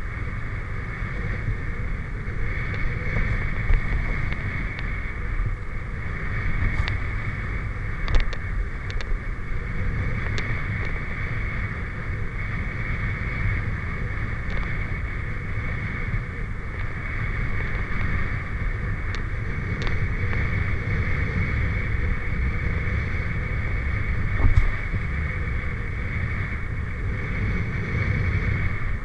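Steady low rumble with wind noise on the microphone, and a few faint clicks.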